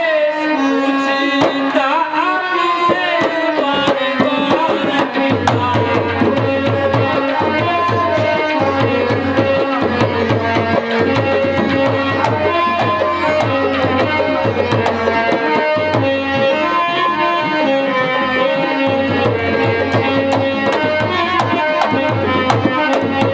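Live stage-accompaniment music: sustained melodic notes over a hand-drum rhythm. A deep drum beat joins about five seconds in, drops out for a few seconds past the middle, then comes back.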